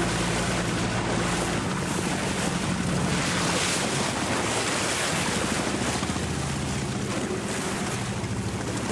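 A motor boat running at speed across open sea: a steady low engine drone under loud wind and rushing water. About a second and a half in, the engine fades back and the wind and water noise takes over.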